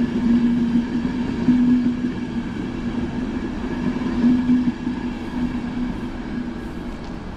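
ÖBB Nightjet sleeper coaches rolling slowly past on arrival, making a steady low hum with a few swells, growing a little quieter toward the end as the train slows.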